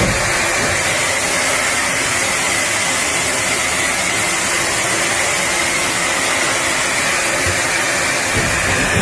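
Doosan HC 500 horizontal machining center running: a loud, steady hiss under a high, even whine that eases down near the end.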